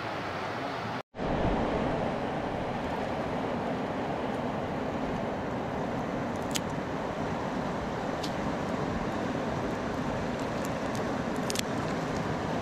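Steady rush of river water and wind on the microphone, cut off for an instant about a second in. A few sharp snips of scissors cutting shrimp bait stand out over the rush in the second half.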